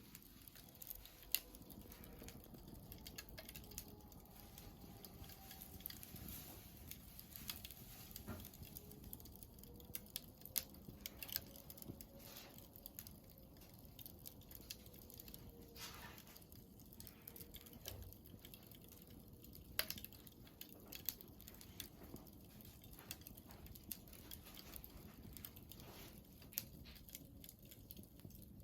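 Quiet wood fire crackling: burning firewood giving irregular, scattered snaps and pops over a faint steady bed of noise.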